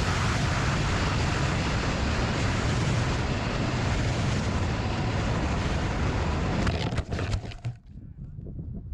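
Strong wind buffeting the microphone, a loud steady rush that breaks up with a few crackles near the end and then drops away sharply.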